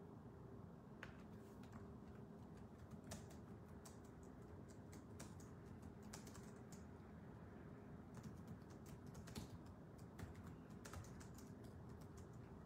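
Faint, irregular clicking of typing on a computer keyboard, over a low steady room hum.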